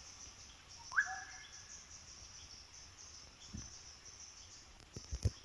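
A black-headed oriole calling: one whistled note about a second in that sweeps up and then holds steady. A steady high hum of insects runs throughout, and a few low thumps come near the end.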